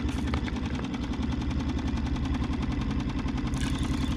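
Small 3.5-horsepower Mercury outboard motor running steadily at low trolling speed, a fast, even putter.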